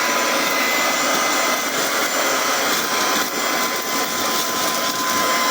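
Rechargeable handheld vacuum cleaner running steadily with a high whine over its rushing airflow as it sucks up spilled cat litter.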